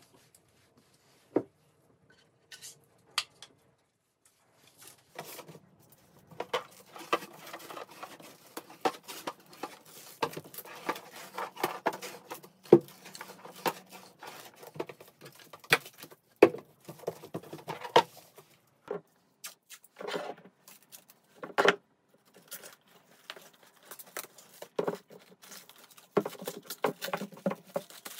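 Clear plastic stretch film being pulled off a mini hand-held roll and wrapped around a cardboard box, with irregular crinkling and crackling and sharp clicks from handling. The first few seconds hold only a few scattered clicks before the crackling becomes dense.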